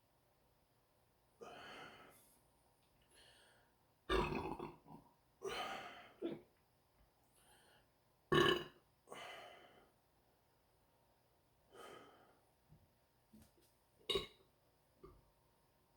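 A person belching from a bellyful of carbonated soda: a string of about seven burps of varying length, some short and sharp, others drawn out. The loudest come about four and eight seconds in.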